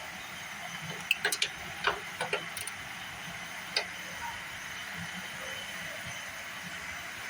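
Scattered sharp clicks and taps of hand tools and metal fasteners as brackets are being refitted under the hood: about eight in quick succession between one and four seconds in, over a steady background hiss.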